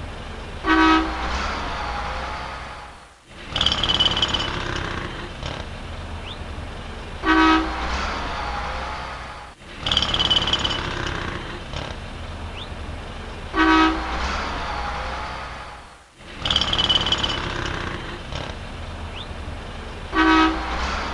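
City street traffic ambience with a short car horn honk. The same few-second recording loops about every six and a half seconds, with a brief drop in level between repeats.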